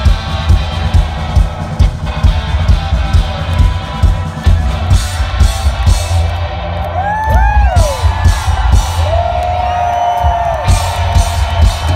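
Two-piece rock band playing live: electric guitar and heavy drums with repeated cymbal hits. From about seven seconds in, crowd whoops rise and fall over the music.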